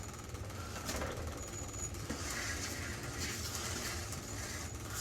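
Steady low hum of an exhaust fan running, with a few faint clicks and short stretches of hiss.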